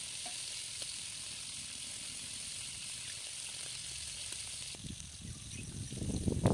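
A steady hiss with a few faint ticks. Near the end, heavy thuds begin as a stone pestle pounds garlic cloves on a stone grinding slab.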